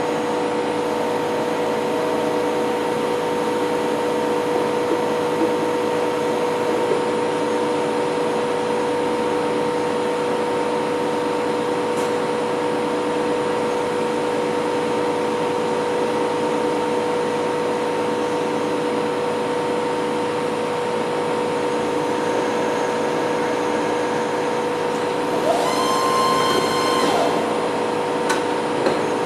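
A Novar CNC bed mill running with a steady mechanical hum holding a couple of constant tones. Near the end a short whine rises in pitch, holds for about two seconds, then stops.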